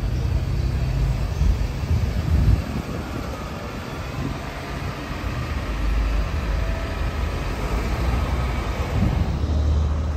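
Road traffic: cars driving past, their engines and tyres making a steady low rumble.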